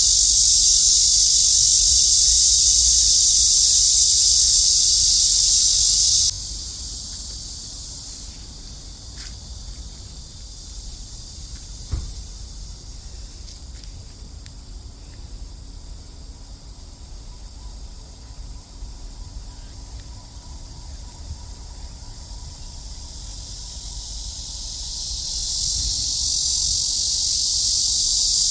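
Cicadas buzzing in a steady, high, shrill drone; loud for about the first six seconds, then dropping suddenly to a fainter buzz, and swelling back up near the end. A single faint click about twelve seconds in.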